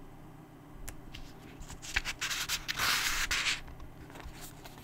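Paper handling as a book page is turned: a few light clicks, then a dry rustle lasting about two seconds, loudest around three seconds in.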